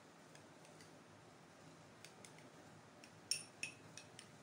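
Metal spoon stirring a thick sauce in a small glass bowl: faint, with a few light clicks of the spoon against the glass, the loudest about three seconds in.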